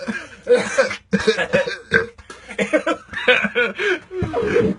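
A man burping, coughing and gagging in a run of short throaty bursts, the sounds of someone fighting the urge to vomit after eating surströmming.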